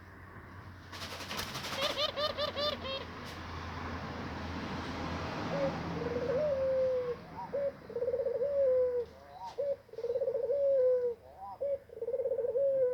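Dove cooing: a brief clatter and a run of quick short notes about two seconds in, then from about six seconds a series of long, level coos, one roughly every second and a half.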